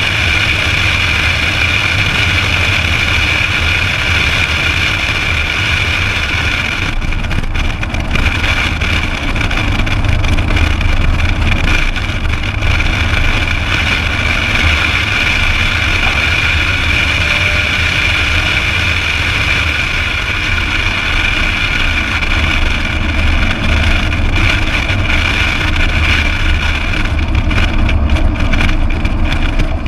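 A 2008 Ford Mustang Bullitt's 4.6-litre V8 is running at track speed, with engine and road noise continuing steadily and loudly throughout.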